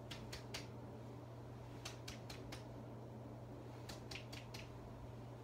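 Chest percussion over the lung fields of the back: a finger tapping on a finger laid against the patient's back, in three quick runs of three or four light taps each, about two seconds apart. The percussion note is judged clear and within normal limits. A steady low hum runs underneath.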